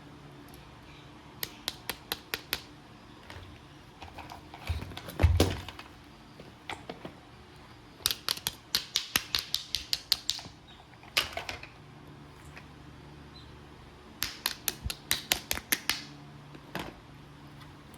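Runs of sharp, hard clicks, about four or five a second, coming in three bursts, with a heavier knock about five seconds in and a few single clicks between.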